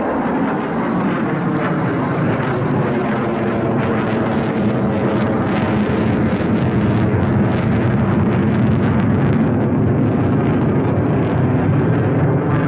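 Mitsubishi F-2 fighter jet flying past, its single F110 turbofan engine making a loud, steady jet noise that grows a little toward the end.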